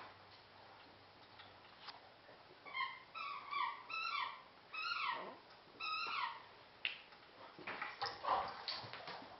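A pet making a run of about seven short, high cries that fall in pitch, followed by a few light taps and clicks.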